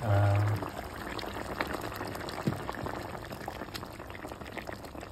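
Coconut-milk curry gravy simmering in a pan around the fish, with a steady bubbling hiss and scattered small pops.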